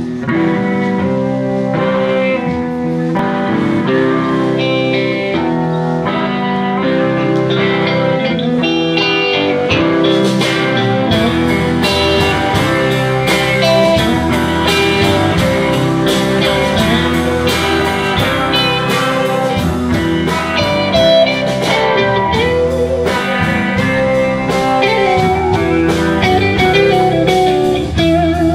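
Live band playing an instrumental passage on two electric guitars, bass guitar and drum kit. It opens on guitar alone, and the bass and drums come in about ten seconds in with a steady beat.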